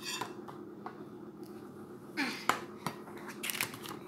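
A metal spoon scooping flour from a glass bowl, with a few light clicks and taps of the spoon against the bowl and the flour sieve.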